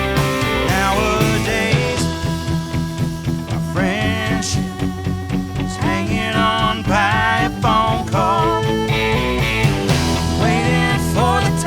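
Rock band playing live, with a lead melody that bends and wavers in pitch over a steady bass and drum pulse.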